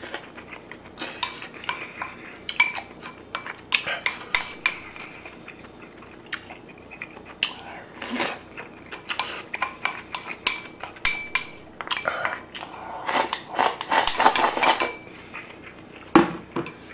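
Spoon and chopsticks clicking and scraping against a bowl and a metal pot of kimchi stew as it is eaten, in irregular clatters that are busiest about thirteen to fifteen seconds in.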